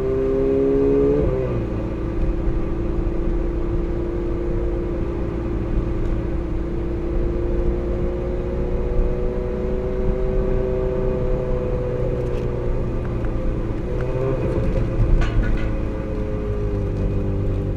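Ferrari 458's V8 engine with an aftermarket exhaust, heard from the car, running at a nearly steady engine speed; its note shifts briefly about a second in, then holds level with only a slight rise and fall.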